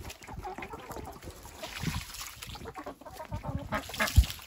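Chickens clucking in a backyard run, with a single loud thump about four seconds in as a plastic poultry waterer is handled.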